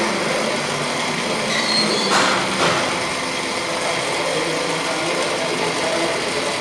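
Steady, loud machine-like rushing noise, with a short crinkle of a plastic supplement bag being handled about two seconds in.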